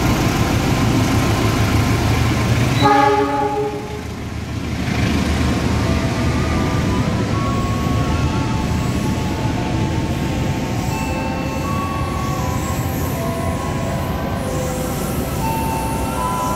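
KAI CC 206 diesel-electric locomotive running past with a heavy engine rumble, then a short train horn blast about three seconds in. After the horn, the coaches roll by on the rails as a steady rumble with thin, wavering squealing tones from the wheels.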